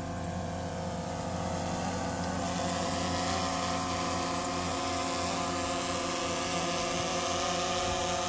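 DJI Phantom 3 Professional quadcopter's propellers and motors humming steadily as it hovers low and moves closer, growing louder about two seconds in.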